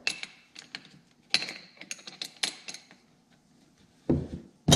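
Metal AN hose-end fitting being handled and threaded onto a rubber oil line by hand: scattered light clicks and rattles of metal parts, then a dull knock about four seconds in and a sharp click near the end.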